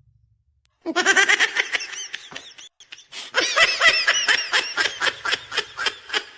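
A person laughing in quick, rhythmic ha-ha pulses, in two bouts: the first starts about a second in and the second, longer one follows after a short pause.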